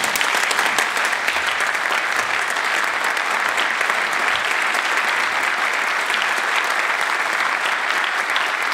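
A large crowd of legislators standing and applauding steadily, a sustained ovation with no let-up.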